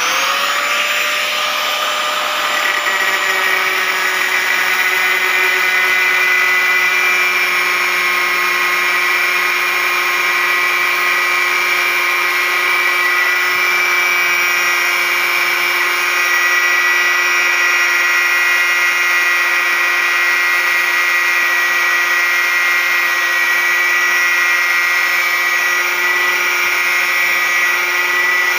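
Black & Decker 820 W angle grinder with an abrasive cut-off disc, cutting through thick steel rebar. The motor starts abruptly and comes up to speed within the first second or so, then holds a steady high whine over the grinding of the disc in the steel.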